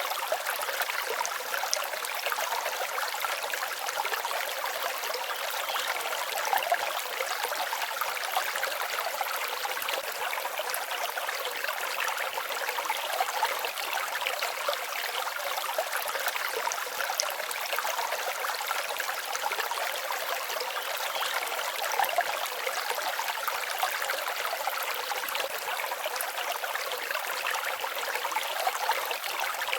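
Forest stream babbling over stones: a steady rush of running water with small splashes flickering through it.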